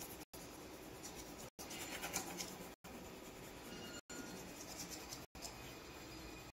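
Faint scratching of a coloured pencil on paper in short strokes, cut by brief dropouts about every second and a quarter.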